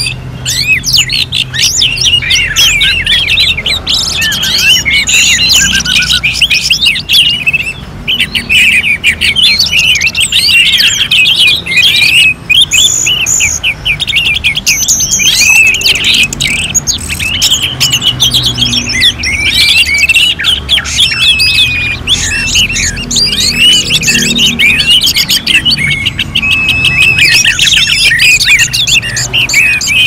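Several orange-headed thrushes singing at once: a loud, unbroken tangle of quick whistled and chattering phrases.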